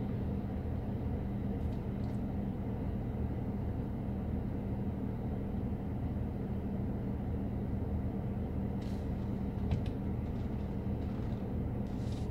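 Mercedes-Benz E-Class (W213) idling, heard from inside the cabin as a steady low hum, with a few faint clicks near the end.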